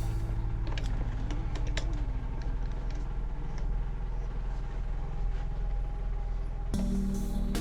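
Light, irregular clicks and taps of hands handling computer hardware parts, over a steady low hum. A denser, tonal background sound comes in near the end.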